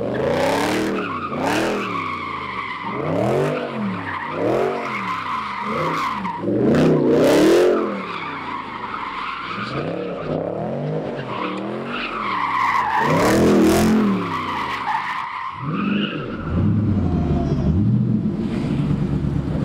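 A car's engine revving up and down about once a second while its tyres squeal, as in a burnout or donuts. The squeal is loudest about seven and thirteen seconds in, and the engine drops to a lower steady drone near the end.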